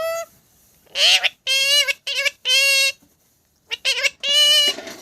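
Pet parrot giving a quick series of short, pitched, voice-like calls, with a pause of about a second near the middle before a last group of calls.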